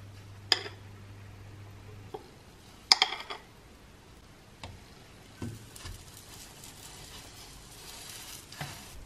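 Pancake batter cooking in a hot non-stick frying pan with a faint sizzle, while a spoon clinks sharply twice, about half a second in and about three seconds in, followed by a few softer knocks.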